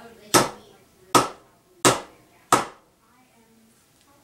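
Four sharp knocks, about one every 0.7 seconds, as the stuck lid of a large pickle jar is struck to loosen it.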